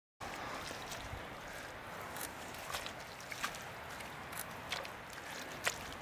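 Wet clay slip squelching and dripping as loose grass straw is worked through it by hand, with a few sharp ticks scattered through.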